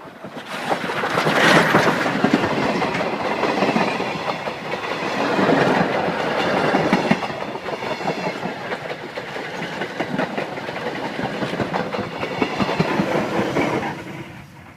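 Steam-hauled train of vintage passenger coaches rolling past, wheels clacking rapidly over rail joints. The sound swells up within the first second and drops away sharply near the end.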